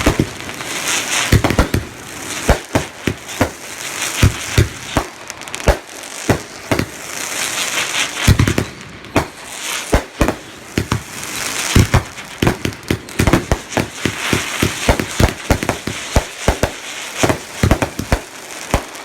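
Consumer fireworks going off: a rapid barrage of bangs, with crackling and hissing between them.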